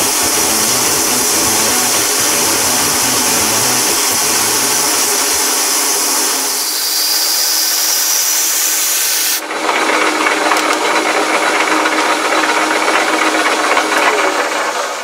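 Large twist drill boring through a metal chuck-backplate blank on a Boxford AUD lathe: a loud, steady grinding racket of the cut, with a high hiss from the coolant mist over it. About nine seconds in the hiss stops abruptly and the cutting noise turns rougher.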